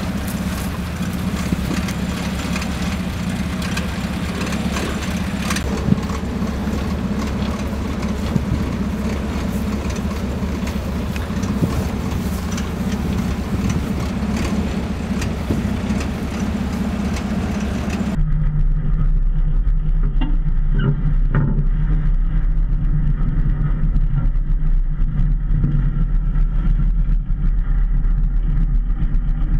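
Armoured vehicle's engine running steadily with a low hum. About 18 s in the sound switches to a deeper, heavier rumble with the hiss gone, as heard from inside the vehicle's fighting compartment.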